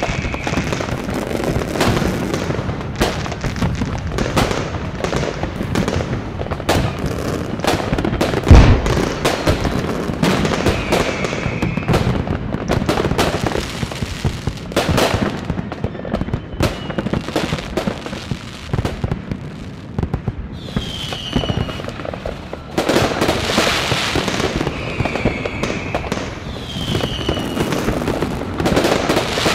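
Many fireworks going off across a city: a continuous crackle of bangs and pops, with one heavy boom about eight and a half seconds in and several short whistles from rising rockets.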